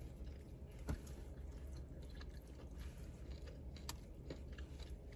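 A person chewing fried chicken dipped in a thick sauce, close to the microphone: soft wet mouth clicks and small crunches, with one sharper knock about a second in.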